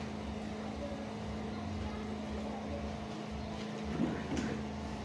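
Quiet room tone with a steady low hum and light background noise, and a brief faint sound about four seconds in.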